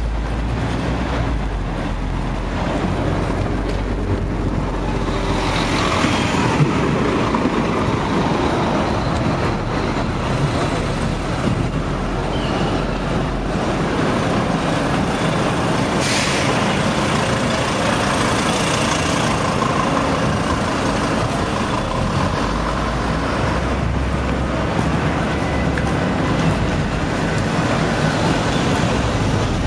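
Traffic on a city street: cars, vans and buses passing, a steady road noise with a brief sharp sound about halfway through.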